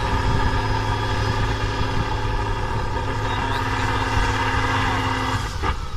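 Diesel trial truck engine working under load as the truck climbs a steep muddy bank, with a steady note that drops away about five and a half seconds in.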